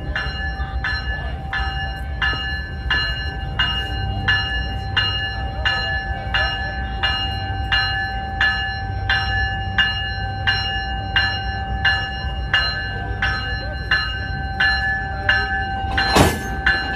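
Locomotive bell ringing steadily, about one and a half strokes a second, over the low rumble of the locomotive. A single sharp bang comes near the end.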